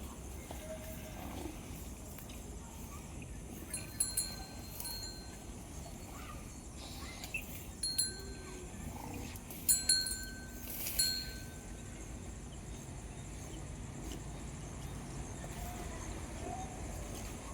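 A small metal bell, of the kind hung on a cow's neck, clinking in a few short ringing bursts: around four seconds in, near eight seconds, and twice more around ten to eleven seconds.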